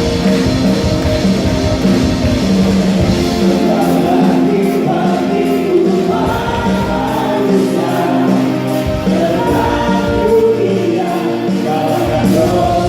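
Sunday school choir singing an Indonesian worship song in unison over a band with guitar and drums; the drums and bass thin out about four seconds in.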